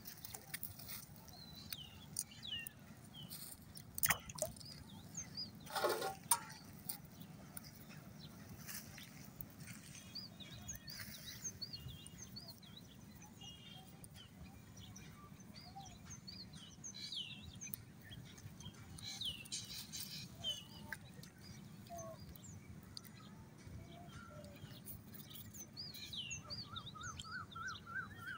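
Birds chirping and calling over a faint outdoor background, with a few short noises from something being handled about four and six seconds in, and a quick series of rising notes near the end.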